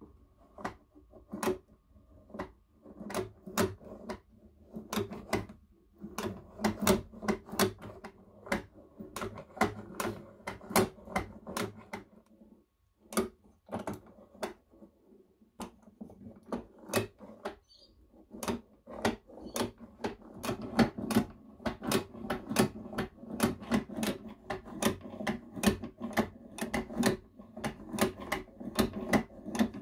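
Old, unrestored hand-cranked Peter Pan Model 1 toy sewing machine being turned, its needle bar and linkage clicking and clattering about two or three times a second, with a couple of brief pauses.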